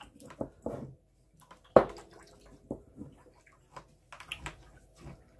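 Paintbrush being swished and rinsed in a cup of water: small splashes and drips with light taps, and one sharp knock a little under two seconds in.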